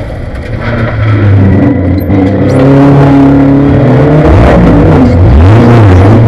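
Onboard sound of a Spec Racer Ford's four-cylinder engine under hard acceleration. The engine note climbs from about a second in, falls and picks up again past the middle, then climbs once more.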